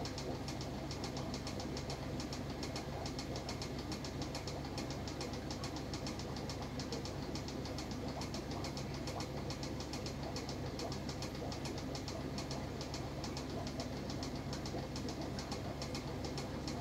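A small motor humming steadily, with a fast, even ticking over the hum.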